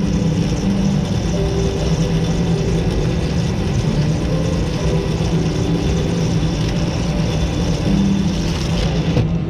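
Arcade ticket-eater machine running steadily as it pulls in and counts a long strip of redemption tickets, a continuous motorised drone.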